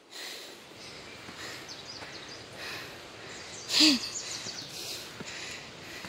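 Steady outdoor forest ambience with faint high bird chirps, broken about four seconds in by one short vocal grunt or exclamation from the person walking, falling in pitch.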